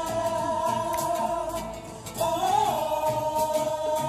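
A gospel song playing, with a singer holding long, steady notes and sliding to a new note about two seconds in.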